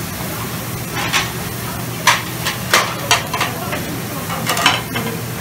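Meat, shrimp and vegetables sizzling on a large steel flat-top Mongolian barbecue griddle, with the sharp clack and scrape of metal spatulas on the steel several times.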